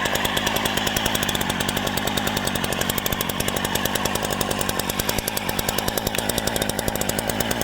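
BlackMax two-stroke gas chainsaw engine revved up and held at speed, a steady, fast buzz that is loud.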